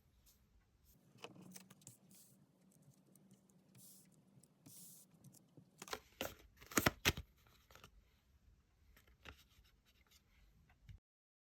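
Tarot cards being handled on a table: soft scraping and rustling with scattered clicks, and a quick run of louder snaps and taps about six to seven seconds in.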